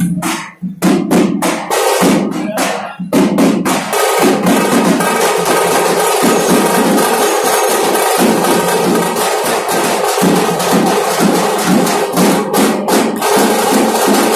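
Punjabi dhol drumming for dancing: a run of separate, spaced strokes for the first few seconds, then from about four seconds in a fast, steady beat under dense, continuous music.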